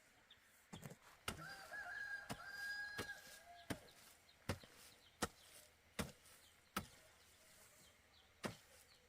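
Regular chopping strikes, about one every three-quarters of a second, with a drawn-out call from a chicken or rooster in the first few seconds.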